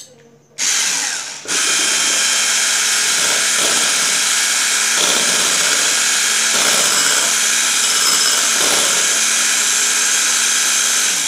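Electric hand mixer beating egg yolks and coffee in a bowl: a short burst about half a second in, then it runs steadily at one speed and switches off just before the end.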